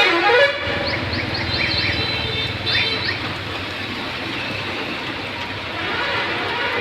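Steady rain hiss. A horn sounds at the start and stops about half a second in, and a few short rising chirps come between one and three seconds in.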